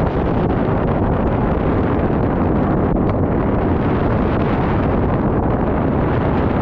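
Steady, loud rush of airflow buffeting a GoPro action camera's microphone during paraglider flight.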